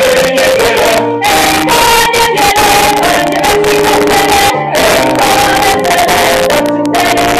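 Mixed choir of women's and men's voices from a Polish folk song-and-dance ensemble singing in harmony, loud, with held notes and brief pauses between phrases.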